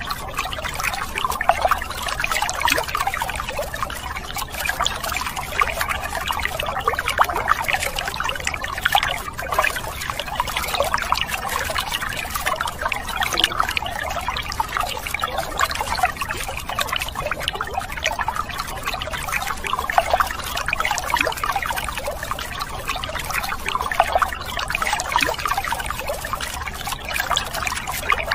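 A thin stream of water pouring and splashing steadily onto muddy plastic toy vehicles and the wet ground beneath them.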